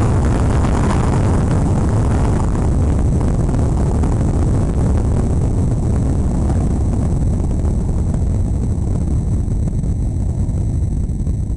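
Soyuz-U rocket's engines during the launch: a loud, deep, steady rumble whose upper hiss thins out over the second half as the noise slowly fades.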